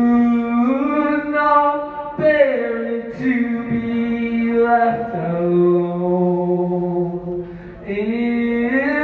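A male voice singing a cappella into a microphone: long, held notes that step to a new pitch every two to three seconds, with no instruments.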